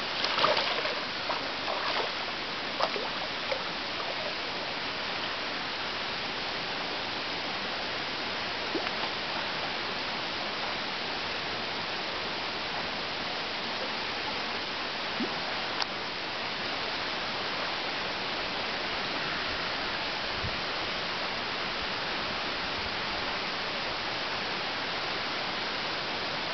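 Steady rush of running water, with splashing in the first few seconds from European otters wrestling in shallow water.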